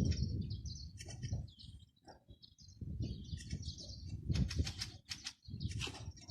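Small birds chirping in many quick, high, short notes over a low rumble, with a few brief rustling bursts about four to five seconds in.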